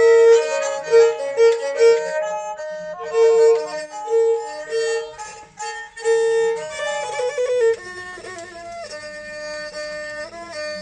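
Thai bowed fiddles (saw) playing a traditional Kantruem mahori melody together. The tune repeats short held notes on one pitch, then moves into a different phrase about three-quarters of the way through.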